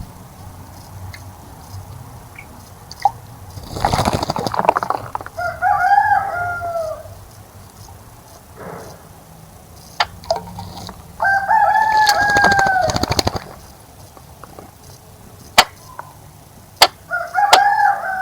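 A rooster crowing three times, each crow held for a second or two and dropping at the end, with two bursts of rapid splashing from a bird bathing in a bird bath and a few sharp clicks.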